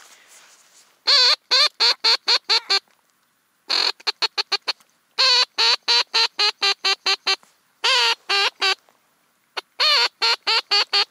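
Ketner teal duck call blown in five quick runs of quacking notes, each run several to ten notes long, calling teal in to the decoys.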